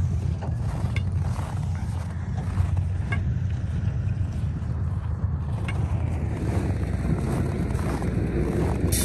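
A steady low rumble, with a few sharp taps of steel crowbars striking the ice.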